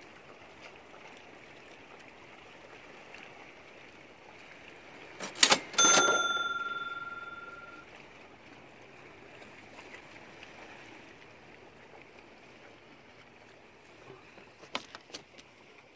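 Knocks and a metallic clang on a canoe: a steady quiet hiss, then about five seconds in two sharp knocks and a loud metal strike that rings with a clear tone, dying away over about two seconds. A few light clicks near the end.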